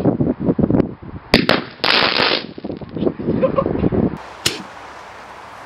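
Firework going off inside a pumpkin: crackling and hissing with sharp pops, a louder burst about two seconds in, then it dies down after about four seconds.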